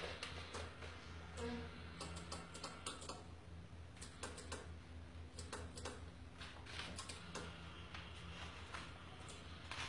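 Homemade sun-tracking solar panel's small motor drive turning the panel to follow a lamp, giving irregular light clicks and ticks with a faint on-and-off whir over a steady low hum.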